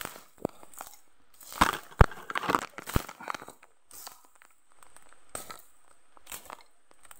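Dry grass stalks and brush crackling and snapping as someone pushes through thick overgrowth. The snaps come irregularly and are loudest about two to three seconds in.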